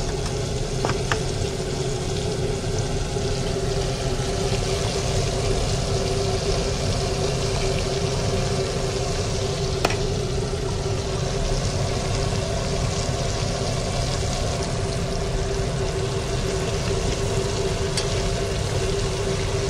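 Chicken skin deep-frying in hot oil: a steady sizzle over a constant hum, with a couple of light clicks, about a second in and about halfway through.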